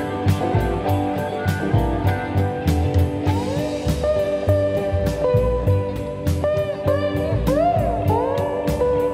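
Background music: guitar playing sustained lines with notes bent up and down over a steady drum beat.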